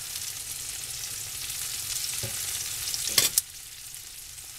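Ribeye steaks and trumpet mushrooms sizzling steadily in a hot skillet. A fork clinks against the pan, faintly about two seconds in and louder just after three seconds, after which the sizzle is a little quieter.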